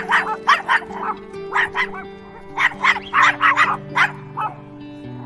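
Small dog yapping: a dozen or more quick, short, high barks in several rapid bursts, over soft background music with sustained notes.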